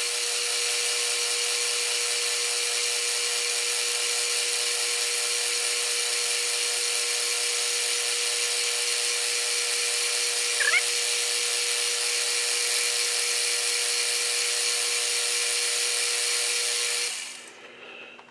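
Metal lathe running while taking a light skim cut on a cast iron backplate: a steady, even whine made of many tones, which starts abruptly and fades out about seventeen seconds in. A brief rising squeak comes about ten seconds in.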